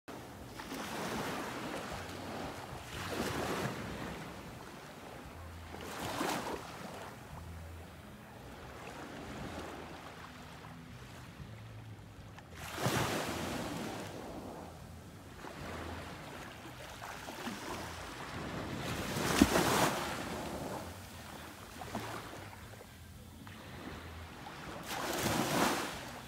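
Small waves washing up on a sandy beach, the wash swelling and falling away every few seconds, loudest about three quarters of the way through.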